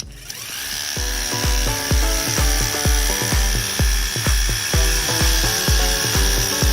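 Worx 20 V Hydroshot cordless pressure washer running and spraying: a steady high-pitched whine with hiss. It plays over background music with a kick-drum beat about two times a second.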